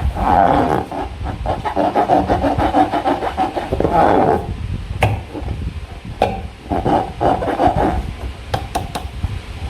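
Slime being squeezed and kneaded by hand: a run of quick, sticky crackles and squelches with short pauses, about four and a half seconds in and again around six seconds.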